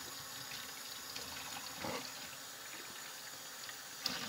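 Kitchen tap running steadily, with a short knock near the end.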